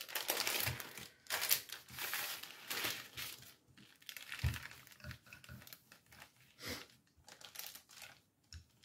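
Parchment paper crinkling and rustling as it is smoothed by hand and rolled over with a wooden rolling pin, in irregular bursts that are busiest in the first few seconds. There are a couple of soft knocks, one near the start and one about halfway through.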